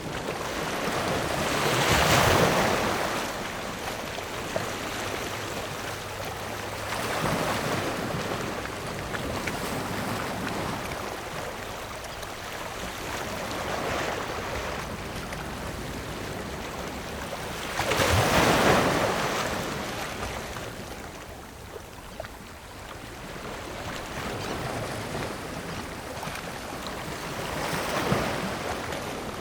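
Ocean waves breaking on rocks over a continuous wash of surf, with big crashes about 2 and 18 seconds in and smaller swells between.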